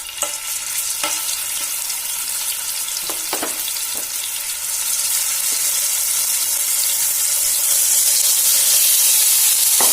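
Masala-marinated chicken pieces sizzling in hot oil in a pan, with a few light knocks in the first seconds and another near the end; the sizzle grows louder about halfway through.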